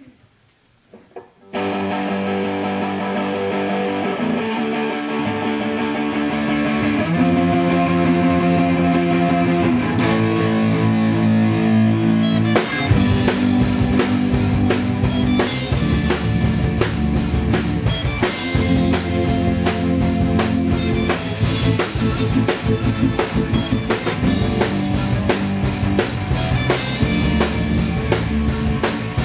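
Live rock band starting a song: a second or two in, sustained chords ring out, changing every few seconds, and about twelve seconds in the drum kit and bass come in and the full band plays on.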